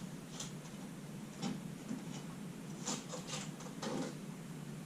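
Faint, scattered light clicks and ticks of hand tools and small hardware being handled during wall-panel installation in a van interior.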